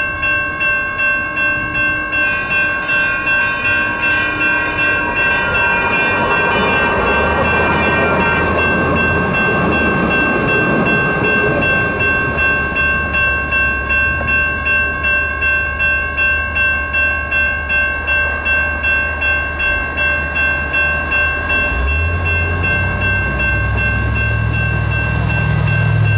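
Electronic railroad crossing bells (an NEG electronic bell and a General Signals Type 1 electronic bell) ringing on and on in a steady pulsing rhythm while the crossing is activated. Near the end, a low vehicle engine rumble rises under the bells as the gates lift.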